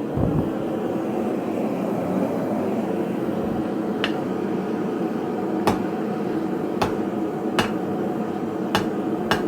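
Hammer blows on hot steel at the anvil while forging a hook: six sharp, ringing strikes, irregularly spaced about a second apart, starting about four seconds in, over a steady mechanical hum.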